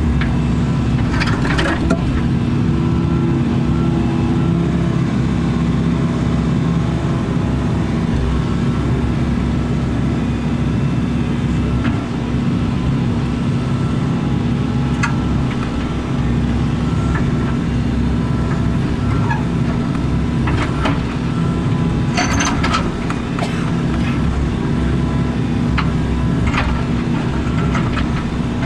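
Excavator's diesel engine running steadily at working speed while the stick and boom are worked, with a few sharp clanks and scrapes about a second and a half in and again about three quarters of the way through.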